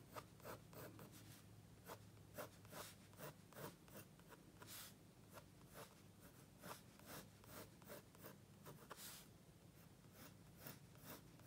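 Mechanical pencil scratching faintly on textured paper in a run of short, irregular strokes, drawing curved lines.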